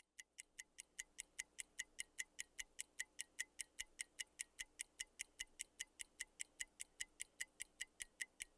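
Ticking-clock countdown timer sound effect: evenly spaced ticks, about five a second, fading in over the first second and then steady.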